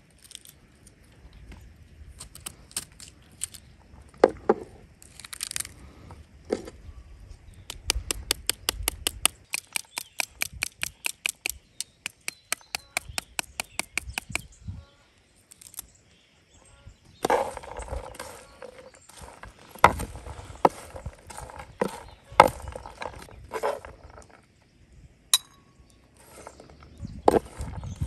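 A knife tapped quickly against the back of a pomegranate half, about five or six knocks a second for several seconds, knocking the arils out onto shredded red cabbage. Later the knife and a spoon scrape and clatter as the cabbage is tossed on a wooden board.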